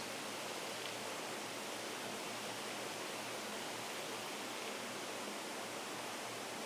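Steady rush of a nearby waterfall, an even hiss with no breaks.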